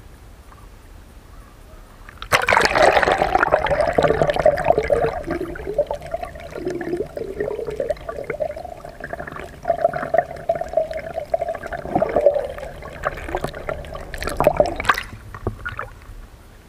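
Water gurgling and sloshing over an action camera plunged under the surface about two seconds in, heard muffled from underwater with a steady tone running through it. Splashes come near the end as it breaks back out.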